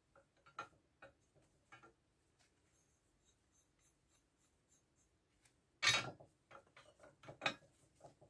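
Steel hooks of a coil spring compressor clinking against a shock absorber's coil spring as they are fitted by hand. A few light clicks, a pause, then a loud metallic clank about six seconds in and another sharp knock a second and a half later as the hook seats on the coil.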